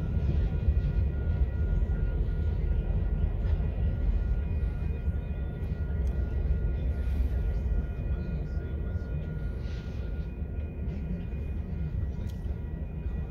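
Distant CN diesel freight train running away from the listener: a steady low rumble with a faint steady whine above it, slowly fading in the second half.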